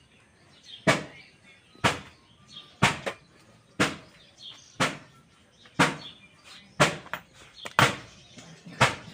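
Sharp knocks repeating about once a second in a steady rhythm, with faint bird chirps between them.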